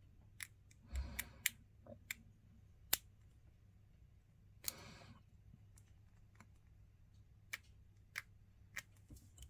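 Hobby knife blade scraping and trimming a small plastic miniature part: a scatter of faint, sharp ticks, with a short scrape about five seconds in.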